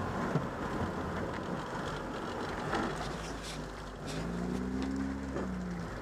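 Military jeep's engine running as it drives slowly over a rough, muddy forest track, with a haze of road and body noise and an occasional knock from the jolting. About four seconds in the engine note rises and holds briefly before easing off near the end.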